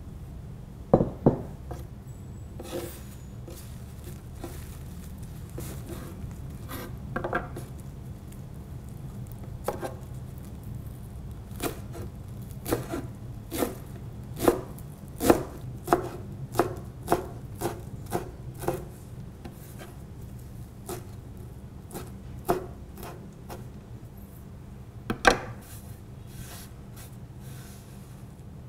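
Chef's knife chopping water spinach leaves on a wooden cutting board: irregular sharp knocks of the blade hitting the board, with a run of quick cuts at about two a second in the middle.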